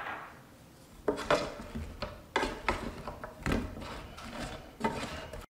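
Wooden spatula scraping and knocking against a nonstick pan while tossing sauce-coated chicken wings, in irregular strokes from about a second in. The sound stops abruptly near the end.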